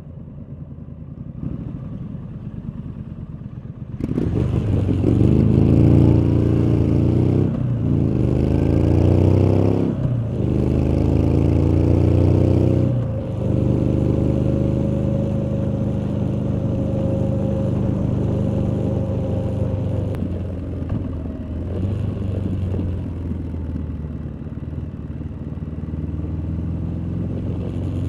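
Exhaust of a 2019 Triumph Street Scrambler's 900 cc parallel-twin engine, recorded while riding. It rumbles low at first, then about four seconds in the bike accelerates hard, the pitch climbing and dropping back through three quick upshifts. It then holds a steady cruise and eases off as the throttle is rolled back in the last several seconds.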